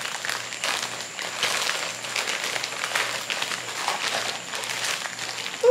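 Plastic poly mailer bag crinkling and rustling as it is handled and pulled open by hand, in irregular crackly bursts.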